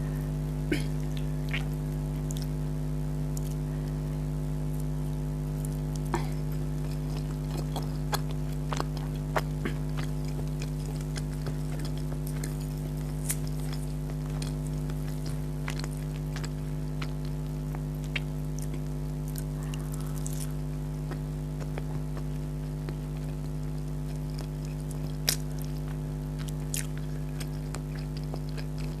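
Close-up eating sounds: scattered wet clicks and smacks of someone chewing food, over a steady low electrical hum.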